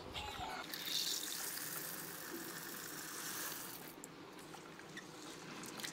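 Water poured into a steel bowl of red lentils to soak them: a steady pour lasting about three seconds, then fading away.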